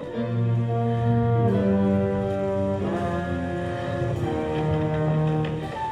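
Orchestral music with brass to the fore, playing held chords that change about every second and a half, closing the musical's finale.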